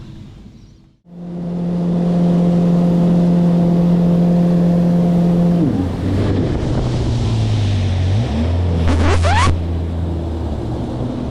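An engine running steadily. Its pitch drops to a lower, steady note about halfway through, and there is a brief rising whine a few seconds later.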